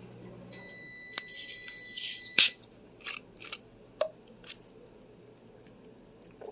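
Screw cap of a plastic soda bottle being twisted open: carbonation hisses out with a thin steady whistle for about two seconds, then a sharp click as the cap comes free. A few soft clicks follow as the bottle is handled and raised to drink.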